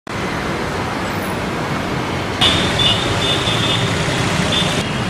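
Steady city street traffic noise from passing cars, autorickshaws and motorbikes. From about halfway, a higher sound made of short, broken high tones joins for about two seconds, then stops shortly before the end.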